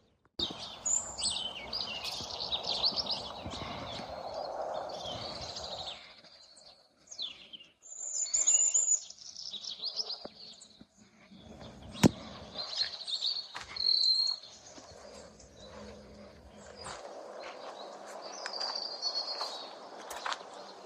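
Morning chorus of many small birds chirping and trilling, with a single sharp click about twelve seconds in.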